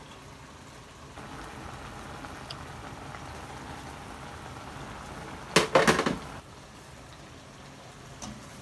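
Broth with crab and vegetables boiling in a wok, a steady bubbling hiss. About five and a half seconds in comes a short cluster of loud knocks, the loudest sound.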